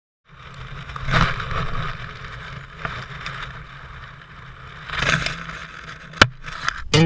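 Rustling and scraping of dry grass right at the microphone, swelling louder twice, over a steady low hum, with a sharp click near the end. Guitar music comes in at the very end.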